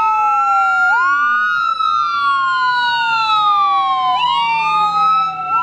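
Ambulance siren wailing: its pitch glides slowly up and down and jumps back up sharply every few seconds, with a second wailing tone crossing it.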